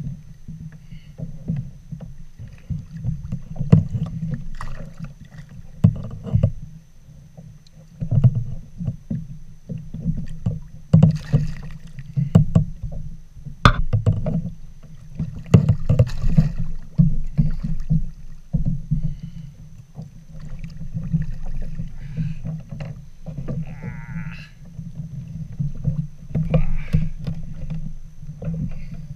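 Sea water lapping and slapping against the plastic hull of a Hobie Outback kayak, a continuous low wash that swells irregularly, with scattered knocks and small splashes.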